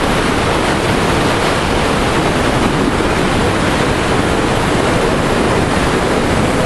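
Whitewater rapids of an artificial slalom course rushing steadily and loudly.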